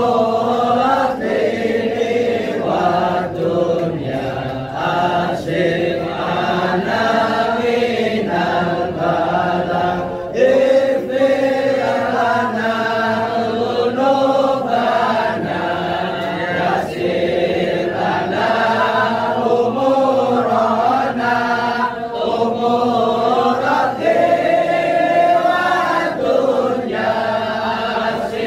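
A group of voices chanting an Islamic devotional chant together, in long, wavering melodic phrases that follow one another without a break.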